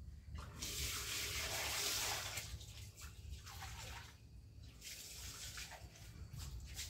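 Water running from a wall tap and splashing, in spells: a longer one of about two seconds starting half a second in, a shorter one around five seconds, and a brief one near the end.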